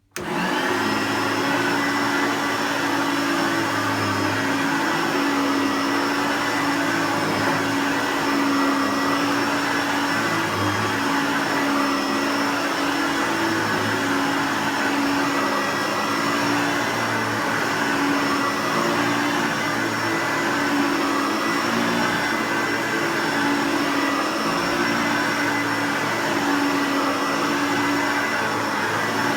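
Hoover Turbopower U2806 upright vacuum cleaner, fitted with a new drive belt, switched on suddenly and running steadily, its motor giving a steady whine over the rush of air.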